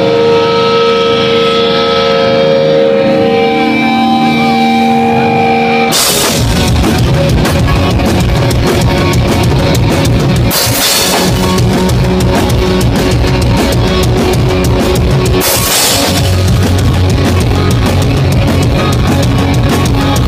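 Pop-punk band playing live: held guitar notes ring out for about six seconds, then the full band comes in with drum kit, crashing cymbals, bass and distorted guitars.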